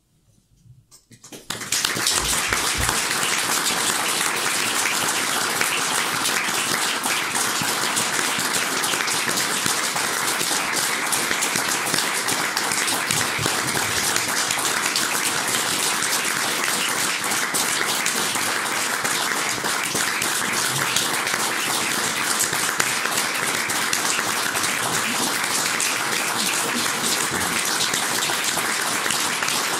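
Audience applauding, starting suddenly about a second and a half in and holding steady.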